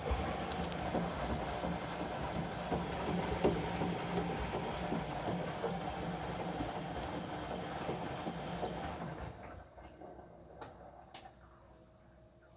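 Whirlpool integrated washing machine's drum turning during the heating stage of a 95° cottons cleaning cycle: a rumble with water swishing in the drum for about nine seconds, then the drum stops and two faint clicks follow.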